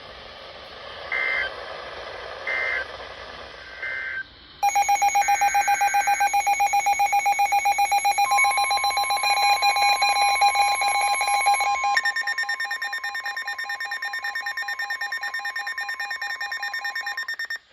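Emergency Alert System signalling: three short warbling data bursts about a second and a half apart, typical of the end-of-message code that closes a warning. Then a loud, rapidly pulsing electronic alert tone begins, joined about eight seconds in by a steady single-pitched tone like the weather radio's 1050 Hz warning alarm. Both stop just before the end.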